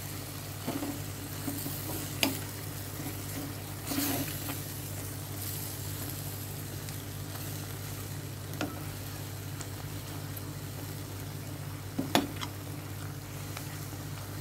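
A metal spoon stirring chicken and kachnar buds in a metal pan while they sizzle, with a few sharp knocks of the spoon against the pan, the loudest about twelve seconds in. A steady low hum runs underneath.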